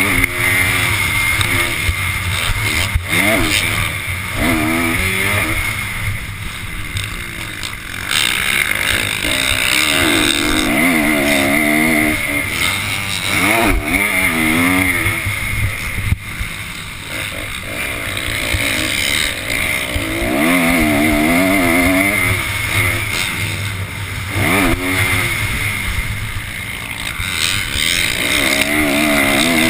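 Motocross dirt bike engine heard on board, revving up hard and dropping back again and again as the rider accelerates, shifts and backs off for the track, over a steady rushing noise.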